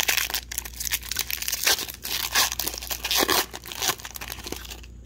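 A 2020-21 Upper Deck Parkhurst hockey-card pack's foil wrapper being torn open and crinkled as the cards are pulled out, an irregular crackling that stops near the end.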